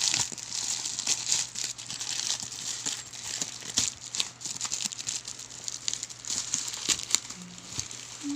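Packaging being handled and opened by hand: irregular crinkling and crackling of the wrapping.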